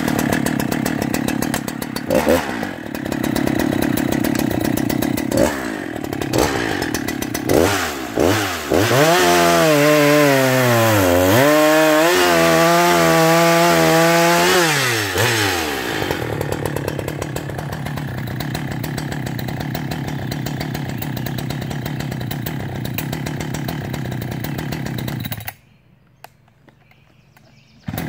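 Husqvarna 395 XP chainsaw's large two-stroke engine blipped several times, then held at full throttle for about six seconds, its pitch dipping and recovering, before settling to a steady idle. Near the end the sound drops away for a couple of seconds and the idle comes back.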